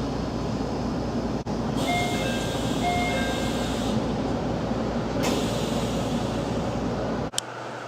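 Door chime of a JR Central 313 series early-build car: a short repeating two-tone chime about two seconds in. It plays over the steady hum of the standing train, and near the end the sound cuts to a quieter background.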